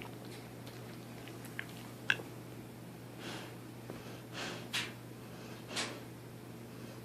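Sleeping dog snoring: soft, noisy breaths roughly once a second in the second half, over a steady low hum.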